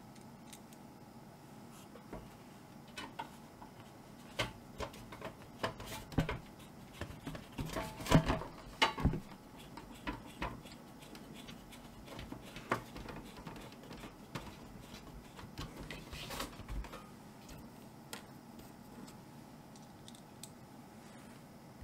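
Small machine screws being handled and driven into the back of a sheet-metal NVR case with a Phillips screwdriver: scattered light metallic clicks, taps and scrapes, with a few sharper knocks as the case is held and moved. The loudest knocks come about eight to nine seconds in.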